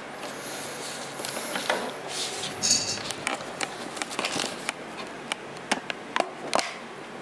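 Thin white foam packing sheet being handled and crumpled, crinkling and crackling, with a rustly hiss in the first few seconds and then many short, irregular sharp clicks.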